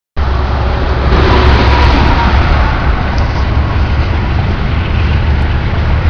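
Loud, steady roar of road traffic with a heavy low rumble underneath.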